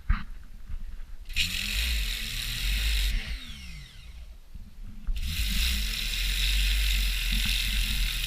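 A motor run in two bursts of about two and three seconds, each time spinning up in pitch and winding back down.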